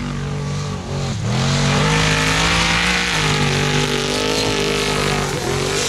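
Formula Offroad buggy's engine running at high revs on loose sand and gravel. The pitch dips about a second in, then climbs and holds high, and drops again near the end.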